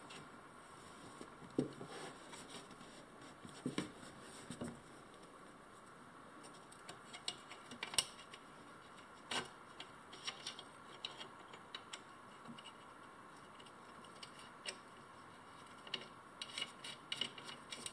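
Hands fitting bolts and nuts through a pressure washer pump's mounting flange: scattered small metallic clicks, taps and rubbing, with one sharp click about eight seconds in and a quick run of ticks near the end.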